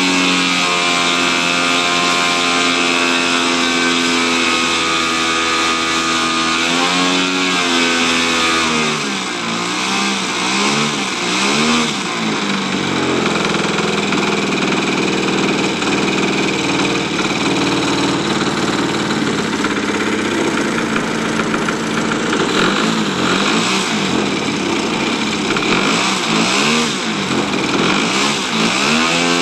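3W-85 two-stroke gasoline engine of a large-scale RC P-51 Mustang, running through a Keleo exhaust on a ground test. It idles steadily for several seconds, then the throttle is opened and closed again and again, so the engine note keeps rising and falling.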